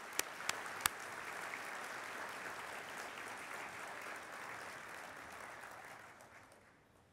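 An audience applauding, with a few sharp claps right at the microphone in the first second from the man at the podium clapping along. The applause dies away over the last two seconds.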